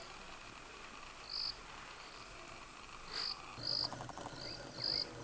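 Crickets chirping in the bush: five short, shrill chirps at uneven intervals over a faint steady insect hiss, with a brief lower pulsing call about three and a half seconds in.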